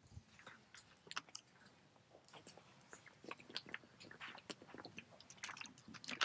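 Faint, scattered clicks and crackles as a plastic water bottle is handled and drunk from, growing a little busier near the end.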